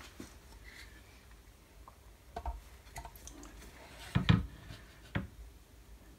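Metal machine parts being handled and set in place: a few scattered knocks and clunks, the loudest a close double clunk about four seconds in.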